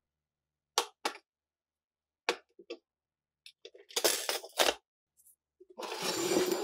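Rusty steel PPS submachine-gun parts set down one at a time in an empty glass tank: sharp clinks and knocks of metal on glass and metal, first a few single strikes, then a quicker cluster. Near the end a steady rushing noise begins.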